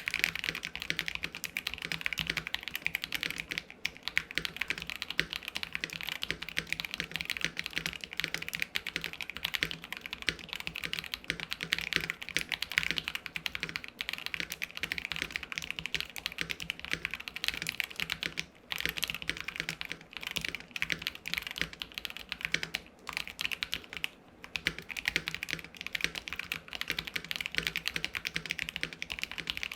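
Continuous typing on a mechanical keyboard fitted with stock, unlubed KTT Peach linear switches in a KBD67 Lite R2 with a polycarbonate plate. It is a dense run of keystrokes with a few short pauses.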